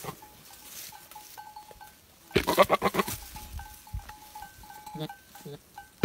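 Billy goat in rut making its courtship call to a doe: a loud, rapid pulsing vocal burst about two and a half seconds in, and a shorter one near the end.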